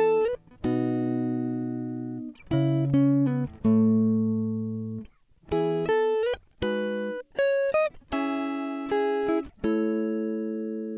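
Background music: a plucked, guitar-like melody of single notes, each struck and left to ring and fade, some sliding into the next pitch.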